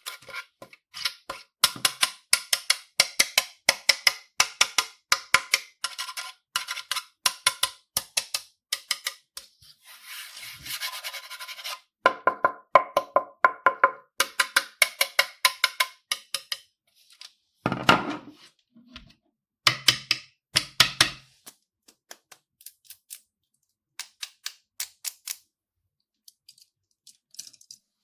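Slime being worked by hand: rapid runs of small sticky clicks and pops, a short hissing stretch about ten seconds in, a few louder squelches around eighteen to twenty-one seconds, then only scattered clicks.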